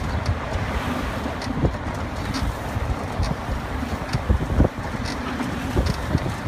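Road noise of a tow truck driving in traffic with a car in tow, with wind buffeting the microphone in irregular low thumps and a few light clicks.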